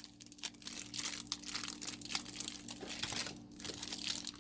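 Crinkly plastic packaging being handled around a five-piece makeup brush set, a run of irregular crackles and rustles.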